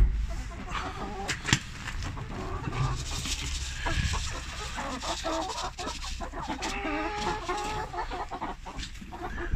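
Chickens clucking repeatedly, more busily in the second half, while grain scrapes and rattles as it is scooped into a feed trough.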